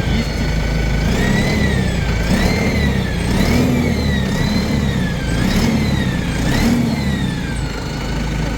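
Turbocharged tractor diesel engine revved up and down repeatedly, with the turbo whistle rising and falling in pitch with each rev, about once a second. The engine then settles back to a steady run near the end.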